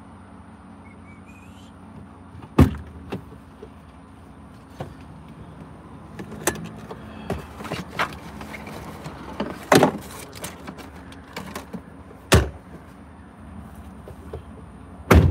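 Truck centre console lid being opened, rummaged in and shut: four sharp knocks, the last near the end, with smaller clicks and rattles between, over a low steady hum.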